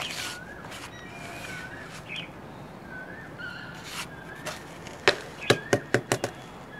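A plastic plant pot knocked down on a stone floor, about six quick knocks near the end, to settle the soil around freshly planted rain lily bulbs. A small bird chirps repeatedly in the background, short rising-and-falling notes every half second or so.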